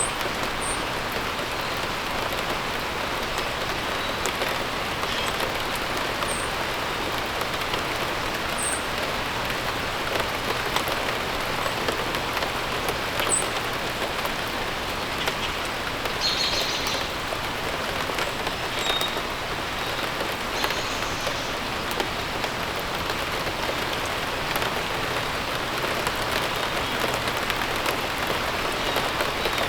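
Steady rain falling and pattering on surfaces, an even hiss with no let-up. A few short, high bird chirps come through faintly now and then.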